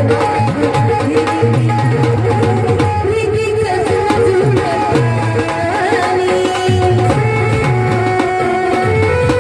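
Instrumental passage of Marathi folk orchestra music: a steady hand-drum rhythm under a held melody line, with no singing.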